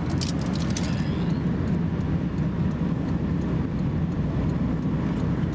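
Steady road and engine noise of a moving car, heard from inside the cabin, with a few short clicks or rattles in the first second.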